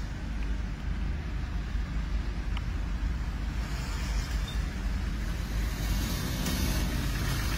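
VW Passat B8 idling in park, a steady low rumble heard inside the cabin. A hiss in the higher range builds from about halfway through.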